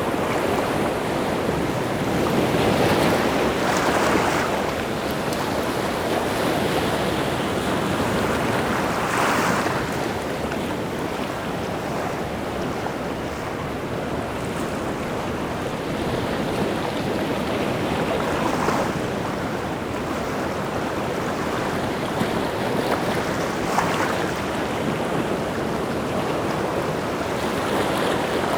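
Rough sea surf on a beach: a continuous wash of waves, with a louder wave breaking every several seconds.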